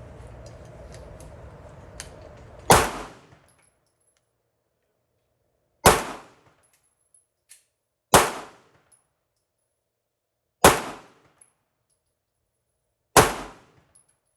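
Five handgun shots fired one at a time, about every two and a half to three seconds, each a sharp crack with a short ringing tail.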